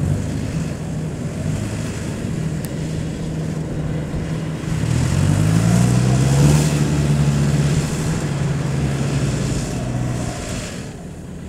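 A farm tractor's engine working hard in the mud, its wheels spinning without climbing out. The revs rise about five seconds in, hold, and ease off near the end.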